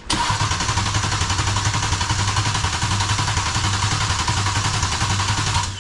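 Mercedes CLS550's V8 being spun by its starter motor with the spark plugs removed, turning over fast and evenly with a rapid steady chatter but not firing. It starts abruptly and cuts off abruptly near the end.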